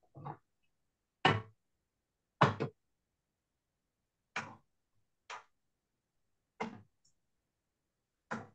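Cooking utensils knocking against a stainless steel pot: seven short knocks spread over several seconds, the loudest two coming about a second and two and a half seconds in.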